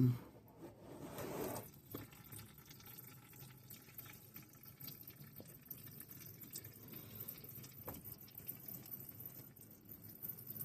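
Engine oil dripping off the minivan's oil filter area during an oil change, falling in scattered irregular drops. A brief low knock is heard right at the start.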